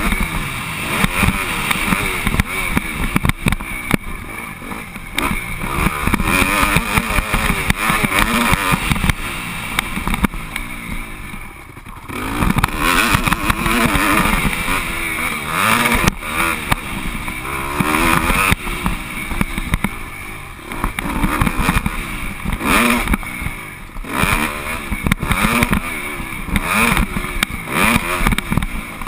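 Motocross bike engine revving up and down as it is ridden hard around a dirt track, the pitch rising under throttle and falling on each gear change or corner. It briefly drops off about twelve seconds in, then picks up again.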